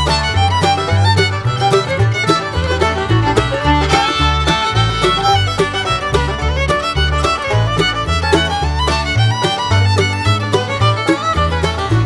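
Lively instrumental music led by a fiddle over a strong, pulsing bass beat, with a folk or bluegrass feel.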